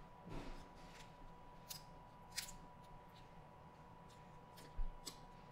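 Quiet eating sounds: scattered short clicks and crackles of shrimp being handled, peeled and eaten by hand, with a small thump nearly five seconds in. A faint steady high tone runs underneath.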